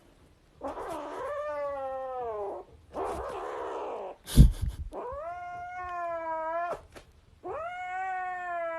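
A cat caterwauling in long, drawn-out yowls, three of them, each rising and then sliding down. A loud thump comes about four seconds in.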